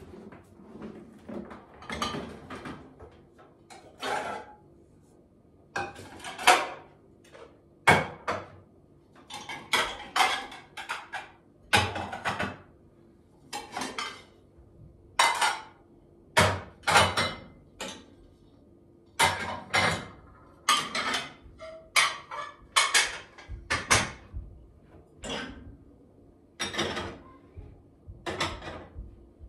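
Clean ceramic plates and pans clinking and clattering as they are lifted out of the dishwasher racks and stacked away, a run of separate knocks about one a second.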